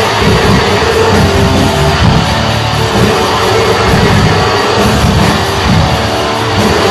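Death metal band playing live: loud, dense distorted electric guitars with bass and drums.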